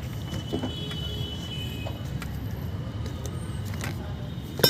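Steady low rumble of a motor vehicle, with scattered light metallic clicks of tools and one sharp metallic clank near the end.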